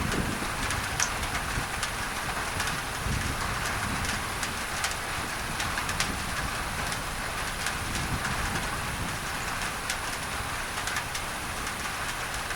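Steady rain drumming on a tin roof, with many scattered sharp drop ticks over a low rumble, mixed with a steady hiss of added masking noise.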